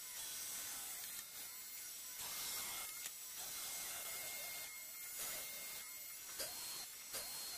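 CNC router spindle running with a steady high whine while its small bit cuts a groove into a white plastic sheet. The cutting noise comes and goes in surges as the bit moves along the cut.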